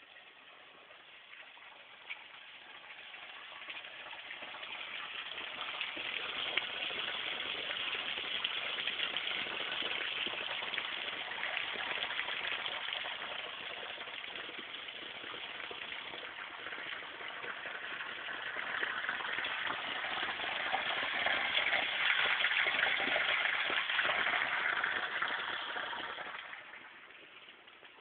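Running water gushing steadily: it swells a few seconds in, eases off midway, grows loudest in the later part, then drops away sharply near the end.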